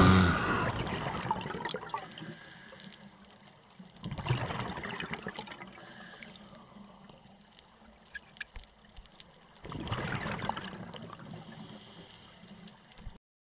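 Scuba diver's exhalation bubbles heard underwater through a camera housing: two bursts of bubbling a few seconds apart, each lasting a couple of seconds. Background music fades out in the first two seconds, and the sound cuts off just before the end.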